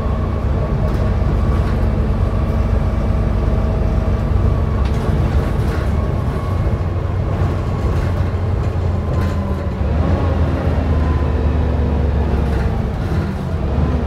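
Volvo B7TL double-decker bus on the move, heard from the upper deck: a low engine rumble with a thin steady whine above it, the engine note rising about ten seconds in.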